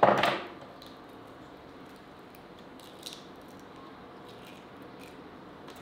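Quail eggs being cracked open over a glass blender jar: one loud, sharp crack at the very start, then a few faint clicks of shell.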